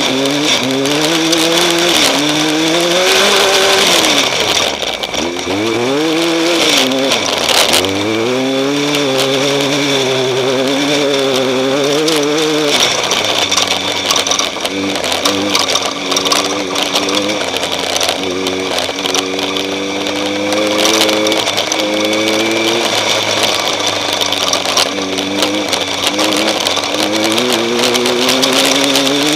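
Off-road race vehicle's engine under load, revving up and down repeatedly, holding steadier revs through the middle stretch, and climbing again near the end. A constant hiss and frequent knocks and rattles run under it.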